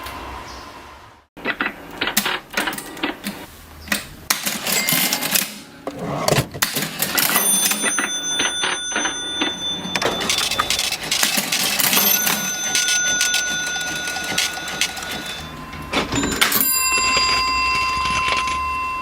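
Vintage mechanical cash register being worked: a dense run of key and lever clacks, with several ringing tones of different pitches that ring on for a second or more. There is a brief gap about a second in.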